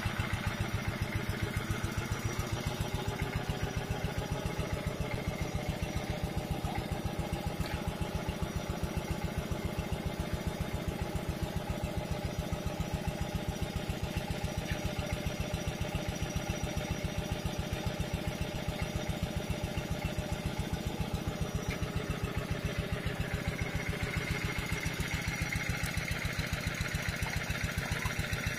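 An engine running steadily at idle, its even, regular beat unchanged throughout.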